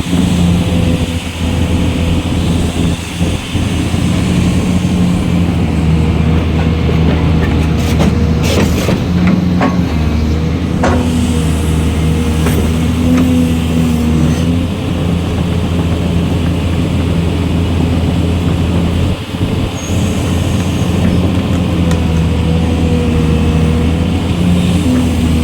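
Hydraulic excavator's diesel engine running steadily under working load, with a steady whine above the low engine hum. A few sharp knocks come about a third of the way in.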